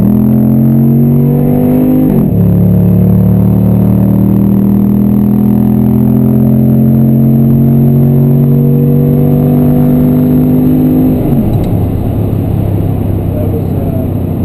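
Muffler-less 6.4-litre HEMI V8 of a 2012 Jeep Grand Cherokee SRT8 under hard acceleration. Revs climb, drop sharply at an upshift about two seconds in, then climb steadily through the next gear for about nine seconds before the throttle is lifted and the revs fall away.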